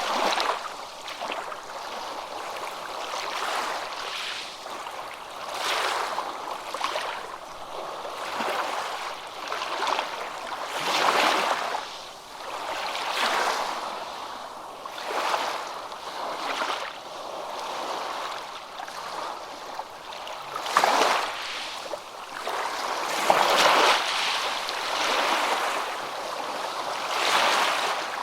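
Water rushing and washing in repeated surges that swell and fade every couple of seconds, like small waves or a fast stream.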